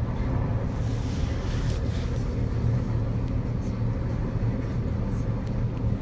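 Electric commuter train of the JR West 223 series 2500 subseries running at a steady pace, heard from inside the car: a constant low hum with rolling noise and a few faint clicks.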